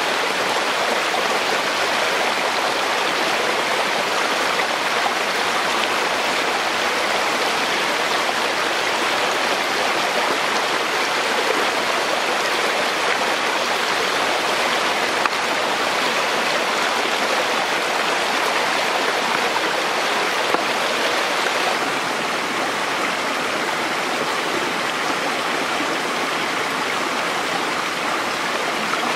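Shallow rocky stream running over stones in small cascades: a steady rush of water, slightly quieter from about two-thirds of the way through.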